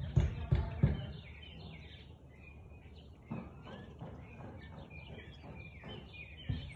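A husky barking in quick repeated barks, about three a second, for the first second. The barking then stops for several seconds while birds chirp, and starts again right at the end.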